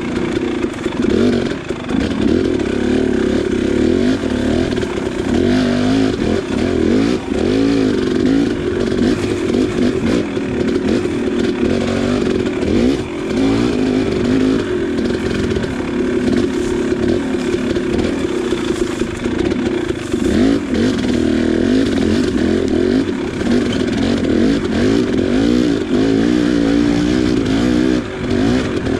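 KTM 300XC's single-cylinder two-stroke engine running under constant throttle changes as the dirt bike is ridden, its pitch rising and falling over and over.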